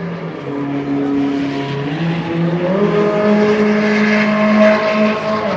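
Sports car engine running hard as the car speeds down the track, its pitch stepping up twice and then holding steady while it grows louder to a peak near the end.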